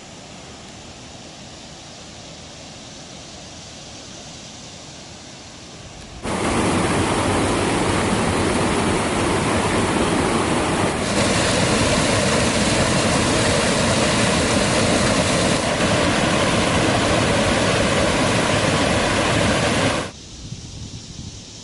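Shallow creek rapids, water rushing over rocks: a loud, even rush that starts suddenly about six seconds in and cuts off sharply near the end. Before it, only faint outdoor ambience.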